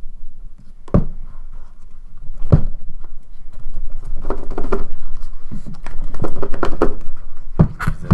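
Hands working the tight-fitting lid off a cardboard tablet box: a couple of knocks, then several seconds of cardboard rubbing and scraping as the lid slides up off the base, with more knocks near the end.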